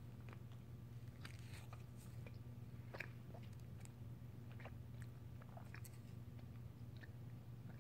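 Faint chewing of a strawberry Hi-Chew, a soft chewy candy, with closed mouth: scattered small mouth clicks and smacks over a steady low hum.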